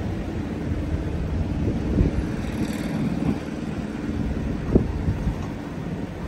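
Car driving: a steady low engine and road rumble with wind noise on the microphone, broken by two short thumps about three seconds apart.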